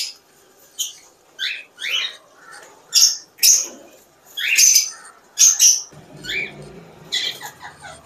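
Cockatiels calling: a string of short, high chirps and squawks, a dozen or so spaced irregularly, several of them sliding down in pitch.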